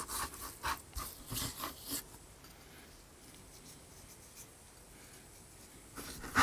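Hands rubbing dry spice mix into raw pork ribs: a few short rustling, rubbing strokes in the first two seconds, then a quiet stretch, with rubbing starting again near the end.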